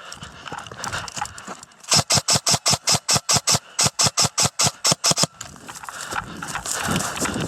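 Airsoft gun firing a rapid string of sharp shots, about six a second, starting about two seconds in and stopping after about three seconds. Then a rustling noise rises.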